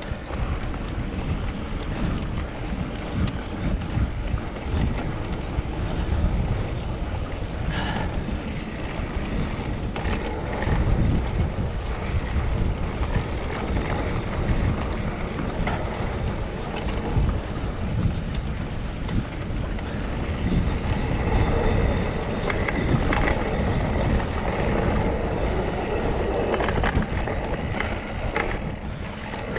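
Wind rushing over the microphone of a moving mountain bike, with tyre noise on dirt and scattered knocks and rattles from the bike over bumps.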